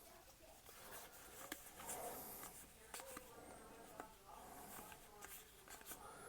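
Near silence with faint rustling and a few light clicks of trading cards being slid through by hand.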